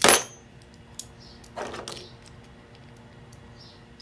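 Hand tools handled against metal gas fittings: a sharp metallic clank with brief ringing at the start, a small click about a second later, then a short scrape.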